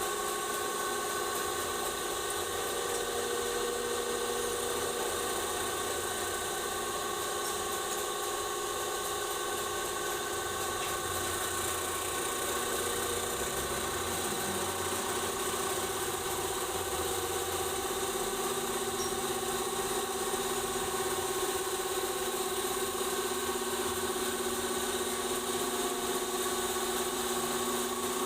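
Nissan Patrol's ZD30 four-cylinder turbo-diesel engine idling steadily, with an even, unchanging engine note.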